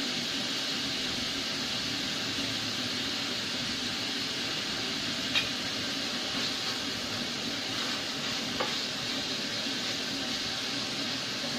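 Ground pork sizzling steadily as it fries in a stainless-steel saucepan, stirred with a spatula, with a sharp clink against the pan about five seconds in and another fainter one near eight and a half seconds.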